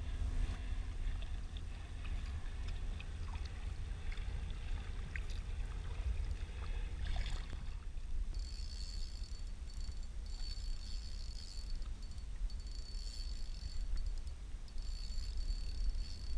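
Sea water lapping and slapping against a kayak hull over a steady low rumble, with small splashes and knocks in the first half. From about halfway, a fishing reel gives short bursts of high whirring as it is cranked while jigging.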